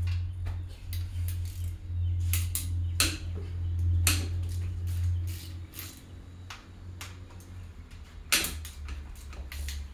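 Scattered metal clinks and clicks of hand tools and engine parts being handled during an engine teardown, about nine at irregular intervals, over a steady low hum.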